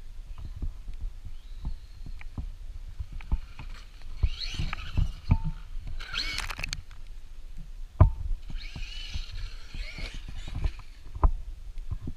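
Traxxas Maxx RC monster truck's electric motor whining in two bursts of acceleration, the pitch bending up and down, with a short hiss between them. Irregular low thumps and knocks throughout.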